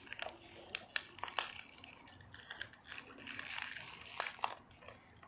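Thin plastic water bottle crinkling and crackling in irregular snaps as it is squeezed and gulped from.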